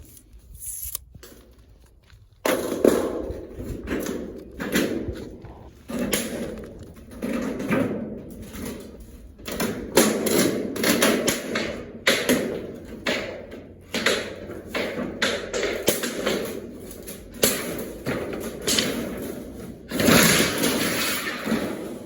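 Zinc roofing sheets being cut in two and handled. After a quiet start there is a sudden, loud run of repeated metallic knocks, thuds and rattles, coming about once or twice a second.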